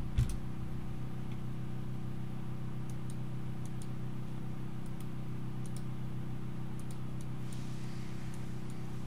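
Computer mouse and keyboard clicks: a knock just after the start, then a scattering of light clicks over a steady low hum.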